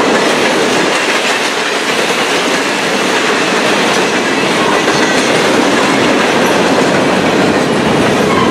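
Loaded freight cars of a long freight train rolling past close by: a steady, loud noise of steel wheels running on the rails.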